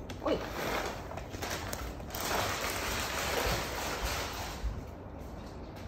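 A foil bag of dry cat food rustling as kibble is tipped into a glass bowl, then a cat eating the dry food from the bowl. The rustling swells in the middle and fades near the end.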